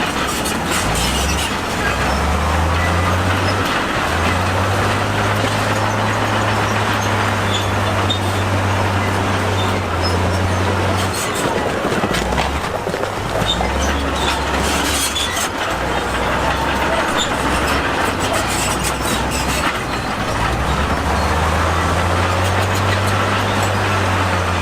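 Crawler bulldozer working: its diesel engine runs under load, the engine note stepping up and down, with the clank and rattle of steel tracks and stone in stretches.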